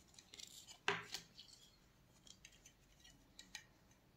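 Sharp clicks and light clatter of a small scarf hanger clip being handled and worked off the scarf, with one loud click about a second in followed by lighter ticks.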